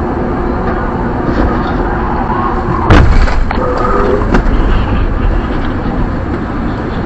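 Steady road and engine noise inside a pickup's cab at highway speed, with one loud bang about three seconds in, followed by a few lighter knocks: the sound of a vehicle striking the truck in a hit-and-run collision.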